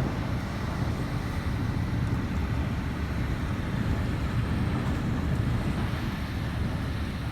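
Hurricane wind blowing steadily, with a low rumble of the wind buffeting the microphone.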